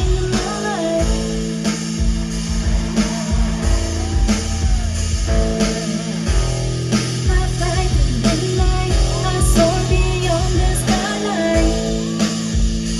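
Rock music with a singing voice over guitar and drums, with a steady beat.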